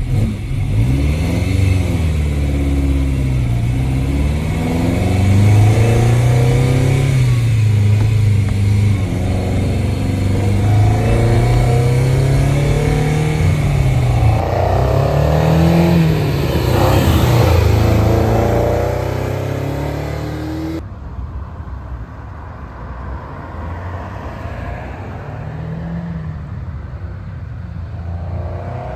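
Ferrari 308 GTB's V8 accelerating through the gears, heard from inside the cabin, its revs climbing and falling back at each shift. About halfway through, the car drives past outside with a sweep in engine pitch, then runs quieter and farther off, swelling again near the end.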